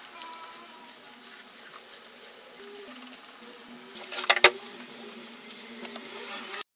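Workshop handling noise of small metal parts being fitted to an old BMW motorcycle engine: scattered clicks and light knocks, with a loud cluster of knocks about four seconds in. It cuts off abruptly near the end.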